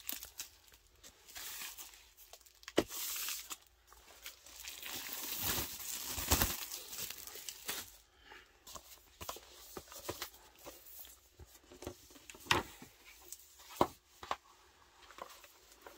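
Printed paper wrapper being torn and crinkled off a hardcover photobook, in uneven rustling stretches with sharp clicks and snaps as the book is handled and opened near the end.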